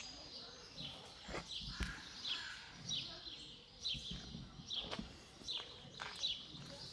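A small bird chirping over and over, a short falling chirp every half second or so, over soft crunching and rustling as capybaras and maras feed on cut grass.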